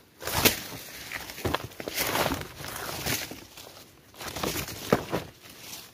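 Cut bamboo shoots being handled and set down on woven plastic sacks and dry leaf litter: irregular knocks and rustling, with a few sharper knocks about half a second in and near the end.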